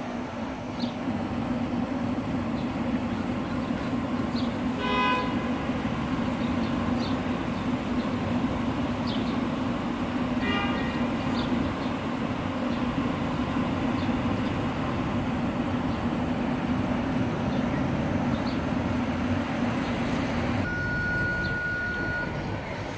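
City street traffic noise with a steady low hum that fades near the end, and two short horn toots, about five and ten seconds in. A thin steady tone sounds briefly near the end.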